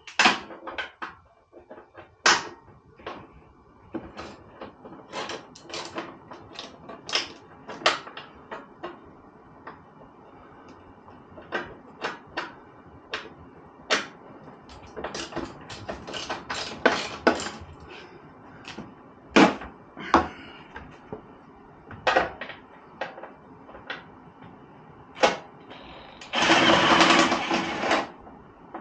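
Hand tools clicking and clanking against metal while fasteners are worked on inside a Jeep TJ's front wheel well, in irregular short knocks. Near the end comes a continuous rasping burst of about two seconds.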